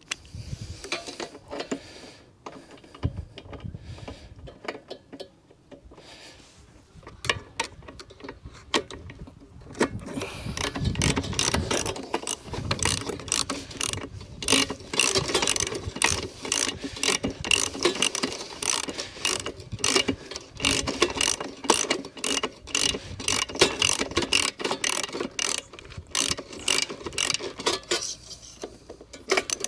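Ratchet wrench clicking rapidly as a spark plug is screwed down into a lawn mower engine; the clicking starts about seven seconds in and goes on in runs until near the end.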